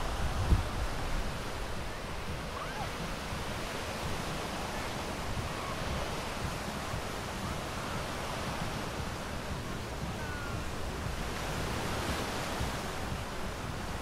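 Surf breaking steadily on a sandy beach, an even wash of waves close by. A short low thump of wind buffeting the microphone comes about half a second in.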